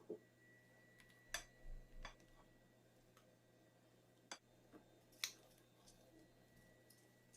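Near silence: room tone with a faint hum and a few scattered light clicks.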